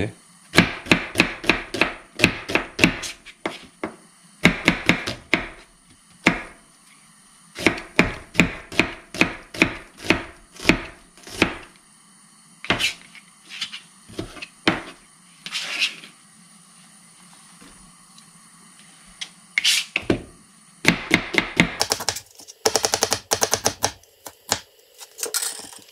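Chef's knife slicing an onion on a plastic cutting board: runs of quick knocks of the blade striking the board, several a second, with a pause in the middle.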